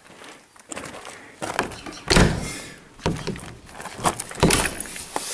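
A wooden door being worked and opened: a few knocks and clunks of the handle, latch and wooden door, the loudest about two seconds in.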